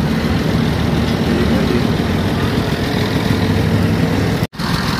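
Engine idling steadily.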